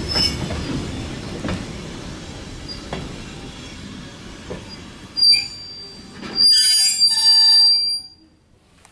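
Passenger coach of a slow-moving excursion train rolling past: a low rumble with a wheel knock over a rail joint about every second and a half. About five seconds in, a loud, high-pitched steel wheel squeal with several tones starts. It cuts off suddenly about eight seconds in.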